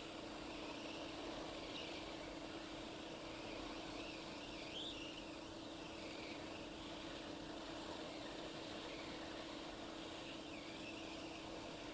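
Hot air rework station blowing steadily while the NAND flash chip is heated off the iPhone 6 logic board: an even airflow noise with a constant low hum.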